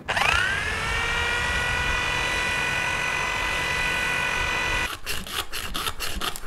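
A handheld electric power tool, held against a boat hull, switches on and spins up within a fraction of a second to a steady high whine that runs for about five seconds. It then gives way to quick hand-filing strokes, about five a second.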